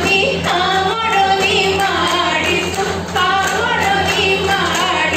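Women singing a Jeng Bihu folk song into microphones, the melody wavering and ornamented, with a steady low hum underneath.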